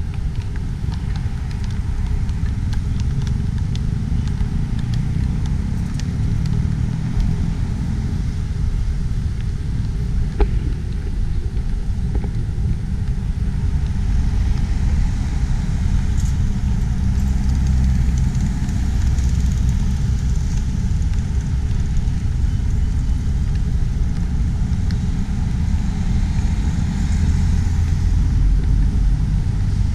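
Outdoor street ambience dominated by a steady low rumble of road traffic, with cars passing. There is a brief sharp knock about ten seconds in.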